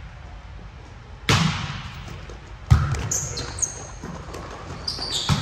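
Two sharp smacks of a volleyball, about a second and a half apart, the second louder, each echoing in the hall. Short high-pitched squeaks follow in the second half.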